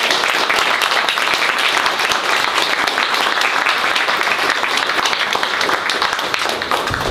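Small audience applauding, many hands clapping at once in a dense, even patter.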